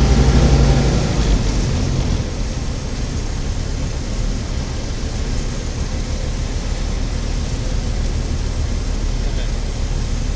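Tecnam light aircraft's propeller engine heard from inside the cockpit, dropping from a steady drone to idle about a second in as the throttle comes back for landing, then idling under a steady low rumble of wind and rolling.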